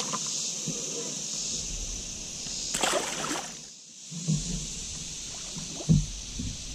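Water sloshing and splashing around a kayak, with one louder splash about three seconds in and two dull knocks later on, over a steady high-pitched hiss.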